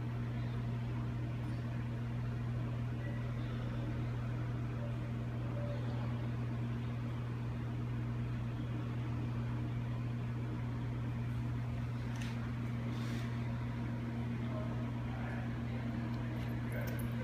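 Steady low electrical hum of running machinery, with two faint clicks about twelve seconds in.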